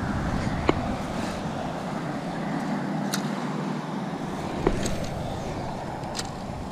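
Spinning reel being cast and reeled in: a few sharp clicks, the loudest about a second into the cast when the bail snaps over. They sit over a steady low rumble.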